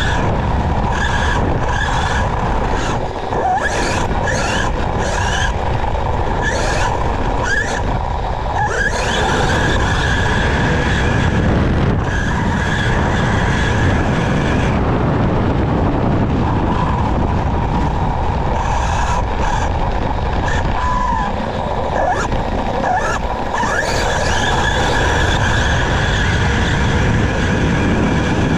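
Onboard sound of a Losi DBXL-E 2.0 fifth-scale electric RC truck at full throttle on a speed run across grass, with a heavy rumble of tyres on turf and wind. The brushless motor's whine climbs in pitch twice as the truck accelerates to over 60 mph.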